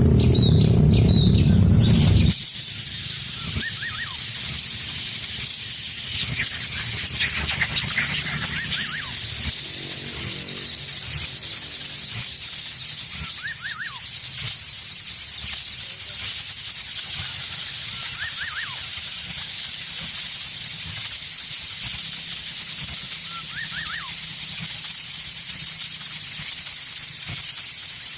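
Outdoor nature sound: a steady high hiss, with short high chirps every few seconds. A louder, deeper sound fills the first two seconds and stops abruptly.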